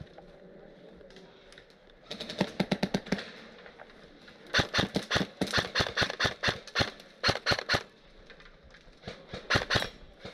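Airsoft guns firing rapid full-auto bursts of sharp snapping shots, roughly ten shots a second. There are four bursts: a short one about two seconds in, a long one of about two and a half seconds, a brief one, and a last one near the end.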